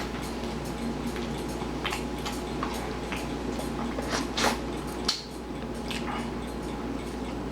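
A few light clicks and knocks of tableware being handled, over a steady low hum that changes about five seconds in.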